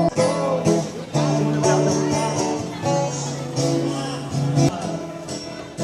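Music: a song with acoustic guitar and singing.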